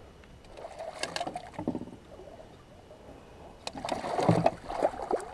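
Scattered knocks and scraping on a plastic pedal kayak as the bowfishing gear and a shot carp are handled, with a few sharp clicks about a second in and busier knocking over the last second and a half.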